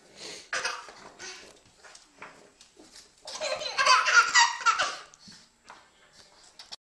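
Laughter in short bursts, then a louder, longer stretch of laughing about three seconds in that lasts nearly two seconds.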